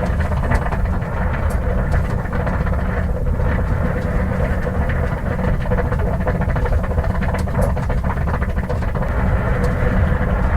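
1950 Ford's flathead straight-six engine idling steadily with a low rumble, with a steady rushing noise above it and a few faint ticks. The car is overheating, its radiator coolant boiling up the hose.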